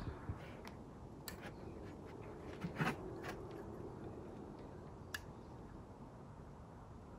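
A few faint sharp clicks of needle-nose pliers crimping and twisting enamelled copper wire ends together on a Model A Ford horn's field coil, the loudest about three seconds in.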